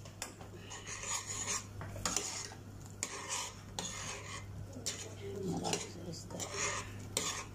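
Metal ladle stirring a simmering soup in a stainless steel pot, scraping and clinking against the pot's side about once a second.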